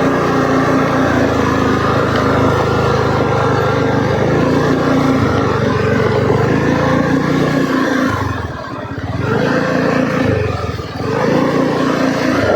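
Motorcycle engine running steadily while riding, easing off briefly twice, about eight and eleven seconds in, before picking up again.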